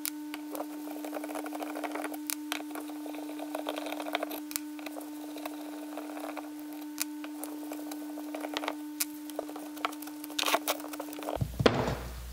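Light metallic clicks and taps of a screwdriver working the steel screws out of a carburetor float chamber, with the screws set down one by one on a metal workbench. There is a steady hum underneath, and a louder burst of clatter near the end as the part is handled.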